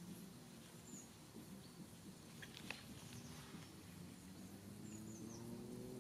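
Faint outdoor ambience: a few short, high bird chirps over a low hum whose pitch rises slowly near the end, with a single small click midway.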